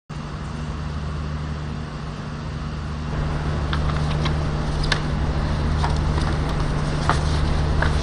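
Steady low hum over hiss from the open microphones of a large hall's sound system, a little louder from about three seconds in, with a few faint scattered clicks.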